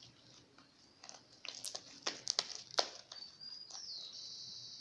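Sticky clicks and crackles of a fluffy shaving-foam slime being squeezed and stretched by hand. Near the end a thin high whistle turns into a steady high hiss lasting about a second.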